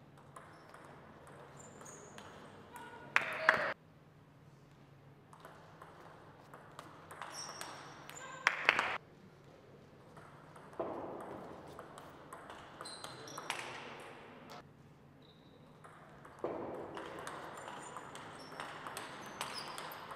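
Table tennis ball clicking back and forth between rubber-faced bats and a Tibhar table in rallies. Two loud short bursts stand out a few seconds in and again before the middle, and a louder stretch of mixed noise comes twice in the second half.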